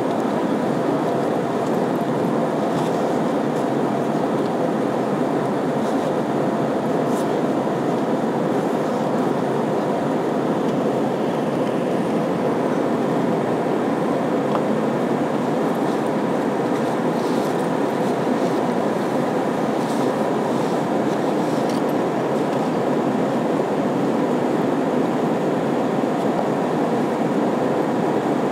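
Airbus A320 cabin noise during the climb: the steady roar of the twin turbofan engines and rushing airflow, heard from inside the cabin, with a few faint ticks.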